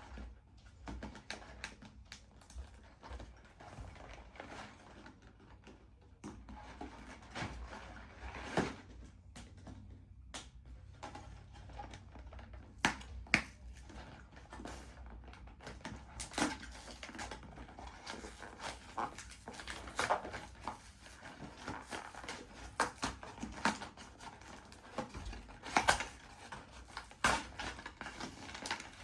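Irregular clicks, taps and rustling of small objects being handled, with a few sharper knocks.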